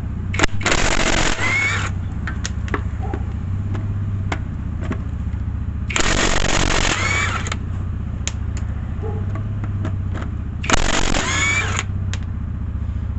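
Cordless impact wrench hammering lug nuts off a truck wheel in three bursts of about a second each, with the motor's whine rising as each nut breaks loose. A steady low hum runs underneath.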